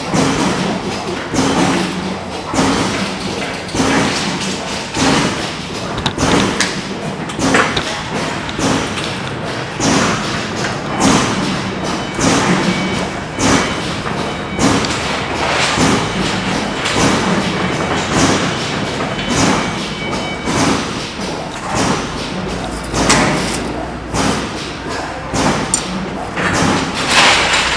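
Steady rhythm of thuds at about one a second over a continuous hum.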